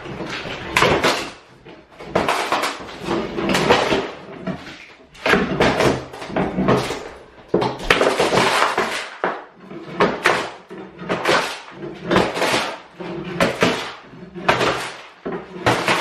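Old sheet flooring being torn up off wooden floorboards with a pry bar: repeated ripping and scraping, about one tug a second.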